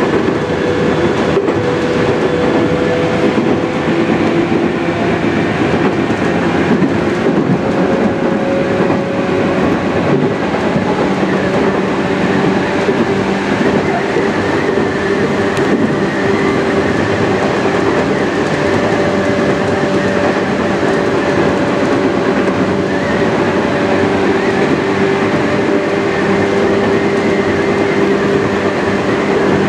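Running sound of a Tokyu 8500 series electric train, heard from its motored leading car. Its DC traction motors give a steady whine at a near-constant pitch over the rumble of wheels on rail, with occasional faint clicks at rail joints.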